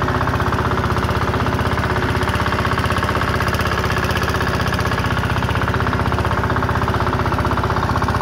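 Fishing boat's inboard engine running steadily under way, with a fast, even knocking beat.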